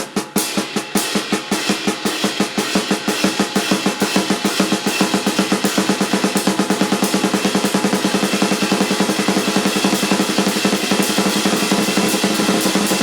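Drum kit playing a Swiss Army triplet blast beat: a flam-right-left sticking with the right hand moved onto another drum or cymbal, over bass drum. The strokes start more spaced and speed up over the first few seconds into a dense, fast run.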